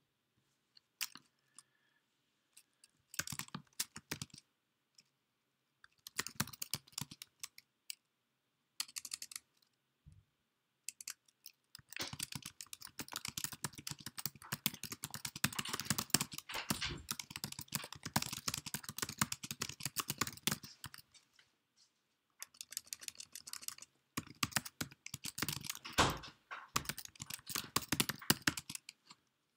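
Typing on a computer keyboard: several bursts of rapid key clicks with short silent pauses between them, the longest run lasting about nine seconds.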